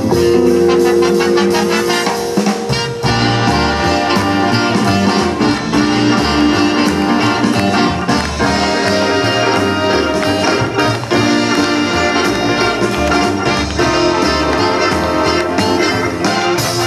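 Big band jazz played live: a saxophone and brass section over drums and the rhythm section.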